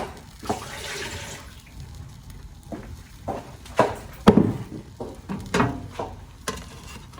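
A short rushing hiss, like running water, starting about half a second in and lasting about a second, followed by a series of separate sharp knocks and clatters.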